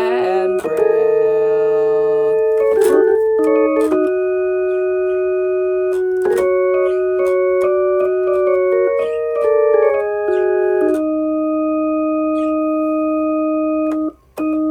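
Instrumental music of held electronic keyboard chords, the notes changing in steps, with a brief gap near the end.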